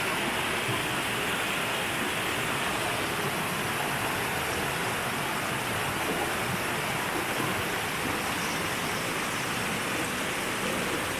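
Shallow rocky stream rushing over rock slabs in small rapids: a steady, even rush of water.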